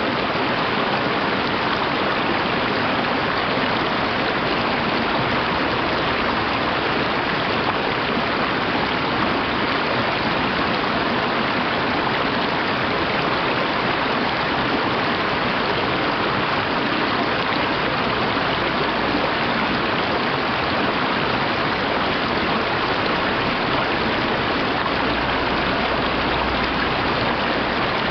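Mountain stream rushing over rocks and small rapids: a steady, unbroken wash of water noise.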